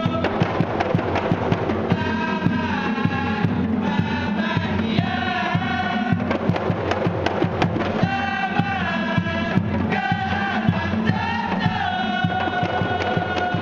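A group of men singing together in unison, accompanied by kompang, Malay hand-held frame drums, struck by hand in a steady rhythm under the voices.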